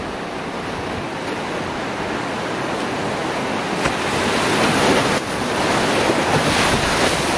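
Whitewater rapids rushing around an open canoe as it runs down into the waves of a drop, getting steadily louder as the boat enters the whitewater.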